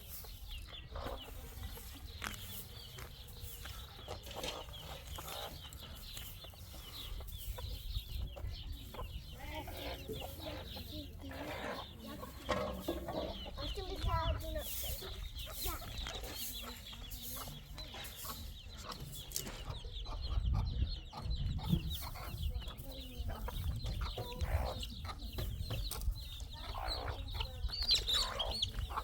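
Chickens clucking on and off, with scattered knocks and a low rumble about two-thirds of the way through.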